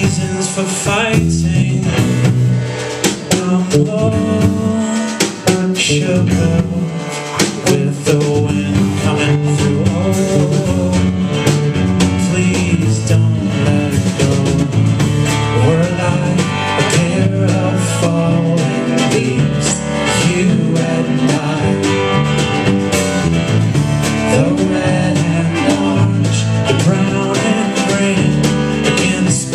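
Live indie-folk band playing an instrumental passage with no sung words: acoustic and electric guitars, cello and drum kit, steady and full throughout.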